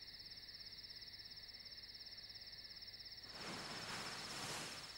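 Crickets chirping in a steady, fast, high-pitched trill. A soft rushing noise swells and fades about three and a half seconds in.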